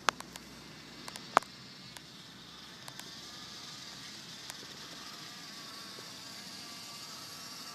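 Radio-controlled car running: a steady whir with a faint wavering whine that slowly grows. A few sharp clicks come in the first second and a half, the loudest just over a second in.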